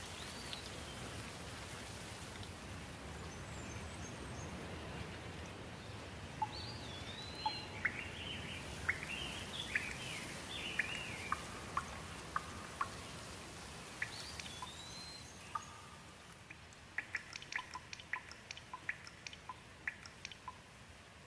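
Steady rain with birds calling over it: whistled, gliding phrases and chirps, busiest in the middle. The rain grows quieter near the end, where a quick run of sharp drip-like ticks comes in.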